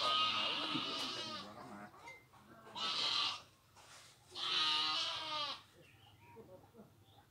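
A goat bleating three times: a long call, a short one about two and a half seconds later, and another long one about a second and a half after that.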